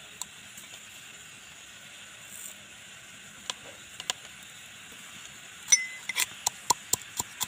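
A few light clinks as dried red chillies and whole spices go into a small aluminium mortar, then, from about six seconds in, a clang and a metal pestle pounding them in steady strikes, about three a second, to crush the spices coarsely.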